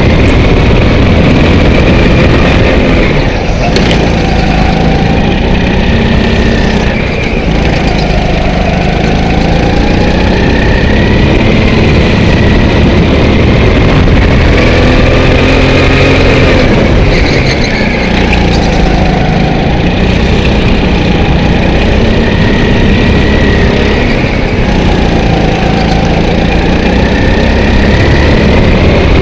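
Indoor rental kart's engine heard from onboard, loud and close, its pitch rising as it revs up along the straights and falling back through the corners, again and again every few seconds.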